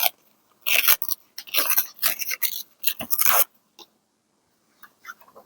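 Paper being handled close up, crackling and rustling in four short bursts during the first three and a half seconds, then a few faint light taps.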